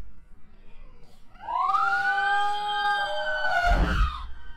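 A long, high, held cry of about three seconds, its pitch arching gently: a scream drawn out as the rubber-banded watermelon bursts. A low thud comes near its end.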